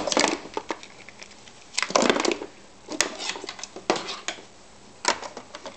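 Tools and odds and ends clattering in a wooden drawer as a galah rummages through them with its beak, in several short bursts of knocks and rattles.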